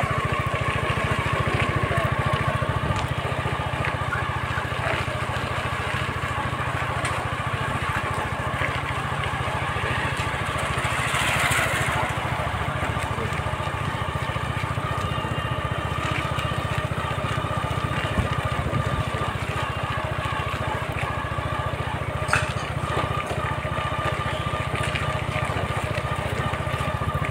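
A small engine running at a steady speed, a constant low drone with a thin steady whine above it. A brief rushing noise rises and falls about eleven seconds in.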